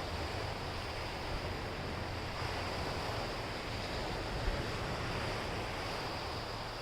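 Sea waves washing onto the beach: a steady surf noise, with wind buffeting the microphone.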